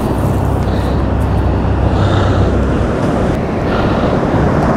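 Steady rushing noise of wind and surf on a beach, with a heavy low rumble that eases about three seconds in.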